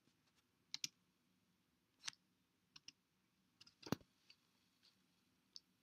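Near silence broken by a handful of faint, irregular clicks, the most distinct about four seconds in.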